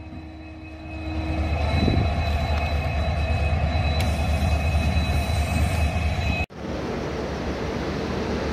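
Diesel locomotive running by with a deep, steady engine hum and a thin high whine, growing louder about a second in. After a sudden cut about six and a half seconds in, a WAP-7 electric locomotive drawing into a station gives a steadier, noisier rumble with a faint hum.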